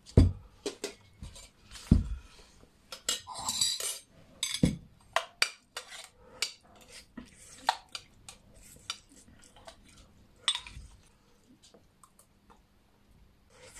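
Tableware clinking and knocking at a meal: bowls, chopsticks and spoons handled in irregular clinks, with two dull thuds in the first two seconds.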